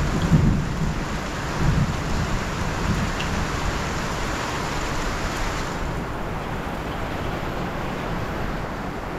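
Steady rain falling, with low rolls of thunder rumbling in the first two seconds. About six seconds in, the higher hiss of the rain drops away and the rain sounds softer.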